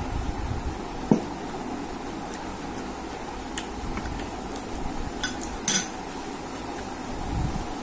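Stainless steel tableware clinking: a spoon, a small steel bowl and a steel plate knocking together, with a sharp knock about a second in and a few light clinks after it, the loudest a little before six seconds in.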